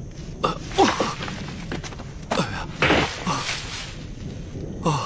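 A man's short effortful grunts and gasps, about six of them, rising and falling in pitch, as he strains to clamber up rocks and sinks down out of breath.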